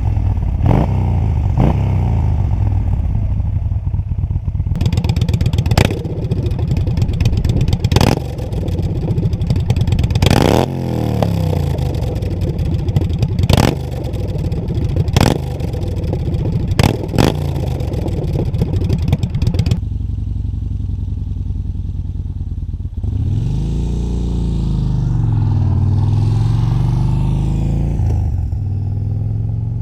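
Yamaha Bolt's V-twin engine running and revving, its pitch swinging up and down repeatedly, with several sharp clicks between revs. The sound changes abruptly partway through, then dips and rises again.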